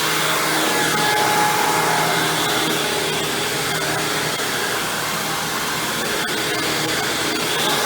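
Hoover WindTunnel Supreme upright vacuum cleaner running steadily as it vacuums, a constant motor hum under the rush of air. A few faint ticks come near the end.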